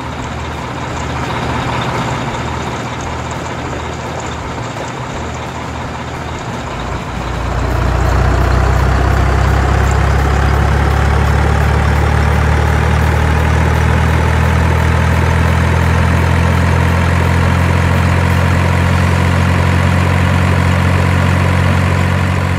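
Heavy diesel truck engine sound effect laid over toy trucks being towed: it idles, then gets louder and deeper about seven seconds in as the truck pulls away, with a pitch that climbs slowly.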